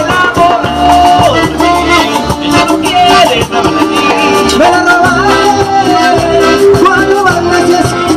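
Live cumbia band playing: a melody line over a steady bass and regular percussion.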